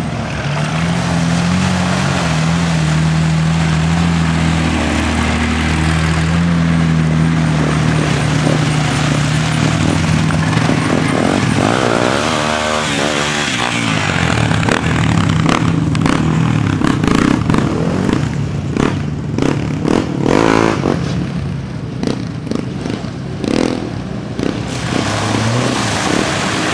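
Four-wheel-drive Jeep engines running as the vehicles drive through a muddy off-road trail. The engine note holds steady at first and wavers quickly for a moment near the middle, and irregular clattering and knocking take over in the second half.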